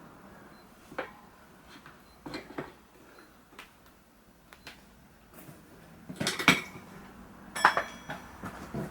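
Tyre levers clinking and knocking against a motorcycle wheel rim as a new tyre's bead is levered on. The knocks are scattered, with a louder cluster of clanks about six seconds in and a ringing clink a second or so later.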